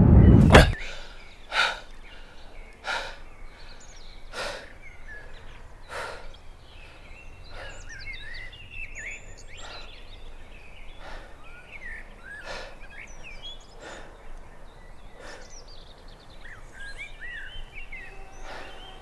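A loud music swell cuts off within the first second, leaving forest ambience: birds chirping, and a person's short sharp breaths about every one and a half seconds.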